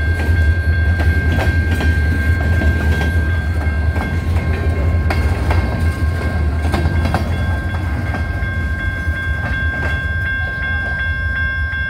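Freight cars of a passing train rolling by at close range, a steady low rumble with wheels clicking over rail joints. Over it the grade-crossing signal's warning bell rings as a steady high tone.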